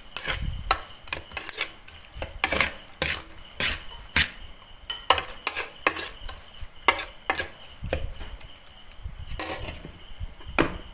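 Plastic spatula stirring raw small fish in an aluminium pot, knocking and scraping irregularly against the pot's sides and bottom, two or three strokes a second.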